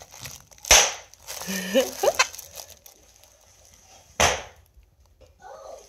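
Bubble wrap squeezed in a hand, bubbles popping with two sharp pops about three and a half seconds apart.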